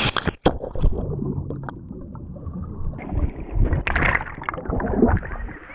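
Underwater sound heard by an action camera that plunges into a swimming pool: a splash as it enters, then dull, muffled burbling and rushing of air bubbles while it stays submerged.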